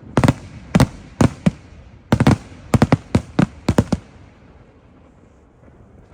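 Fireworks display shells bursting: about a dozen sharp bangs in a quick, uneven series, some in close clusters, that stop about four seconds in.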